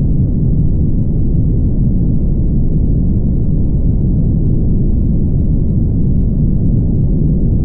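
Car driving at highway speed: a steady, muffled low rumble of road and wind noise.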